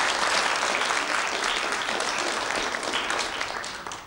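Audience applauding, the clapping fading away near the end.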